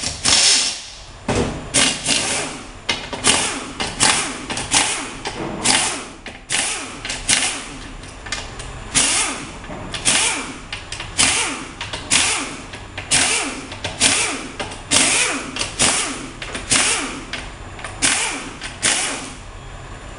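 Pneumatic wrench running in dozens of short bursts, about two a second, as it spins out the valve body bolts on a Turbo Hydra-Matic 350 automatic transmission.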